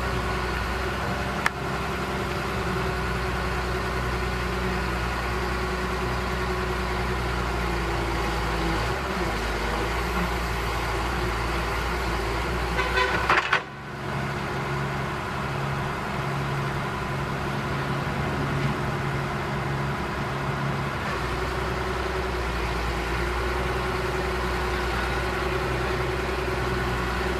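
Heavy diesel engine of a Kobelco SK200 excavator running steadily, its tone changing abruptly twice where the footage is cut. About halfway through there is a brief high-pitched squeal or toot just before one of the cuts.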